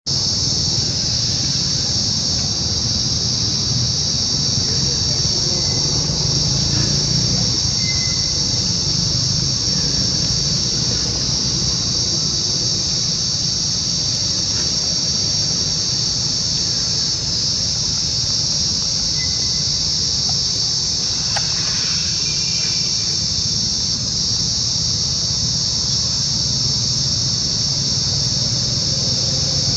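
Steady, high-pitched shrill drone of an insect chorus, unbroken throughout, over a low rumble.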